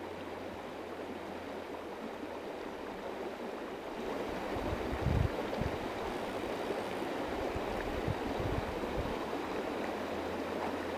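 Shallow stream water flowing steadily, with a brief low bump about five seconds in.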